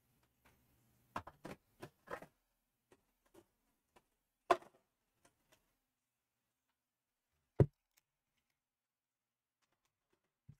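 Trading cards being handled and set down on a table: scattered light clicks and taps, a sharp click about four and a half seconds in and a dull thump about seven and a half seconds in.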